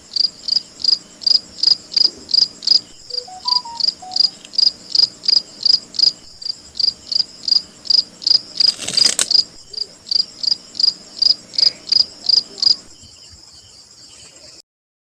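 A green cicada held between the fingers calls in a regular series of sharp, high chirping pulses, about three a second, over a steady high buzz. There is a brief noisy rasp about nine seconds in, and the pulses stop shortly before the end.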